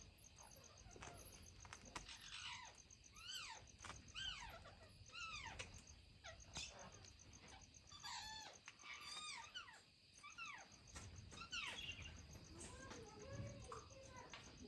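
A baby chicken chick peeping over and over, each peep a short call that rises and then falls in pitch, coming about once or twice a second. These are the distress peeps of a chick left on its own. A steady faint insect chirping runs underneath.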